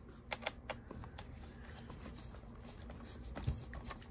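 Scattered light clicks and ticks of a small precision screwdriver engaging and turning screws in a laptop's bottom case, with a soft knock about three and a half seconds in.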